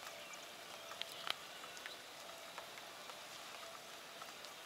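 Light rain starting to fall: a faint, steady hiss with scattered ticks of drops striking, the loudest about a second in.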